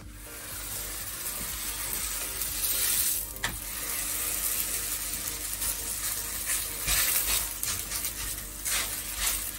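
Folded melwi (msemmen-style) flatbread dough sizzling in a hot non-stick frying pan, the hiss setting in as the dough goes into the pan, with hands pressing it flat. A single sharp tap about three and a half seconds in.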